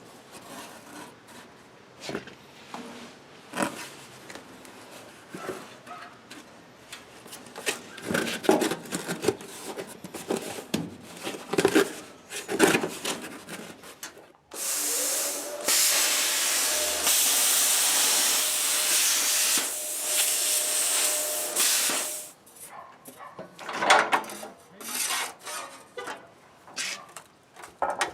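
Metal and tools being handled: scattered knocks, clanks and scraping. About halfway through, an electric shop tool spins up with a rising whine and runs steadily with a loud hiss for about eight seconds, then stops suddenly, followed by more clanks.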